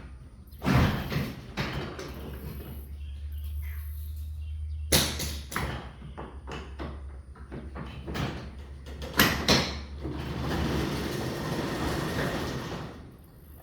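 Sectional garage door running on its opener: a steady low motor hum under the rattle of the door moving in its tracks, with sharp knocks about one, five and nine seconds in. The hum stops near the end, leaving a rustling noise.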